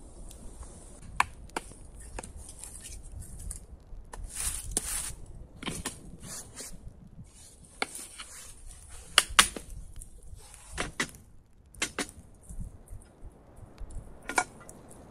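Wood campfire crackling: irregular sharp pops and snaps over a steady hiss, the loudest pops about nine seconds in.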